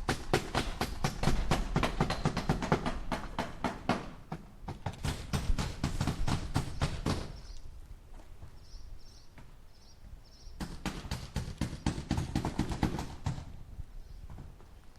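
Hammer driving nails into wood: runs of quick, rapid strikes, with a pause of about three seconds in the middle before the hammering resumes.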